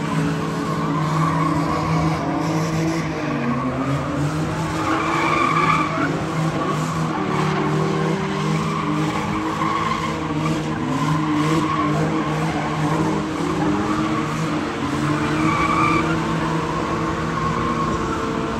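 Drift cars' engines revving up and down while their rear tyres skid and squeal on the tarmac, with louder squeals about five seconds in and again near the end.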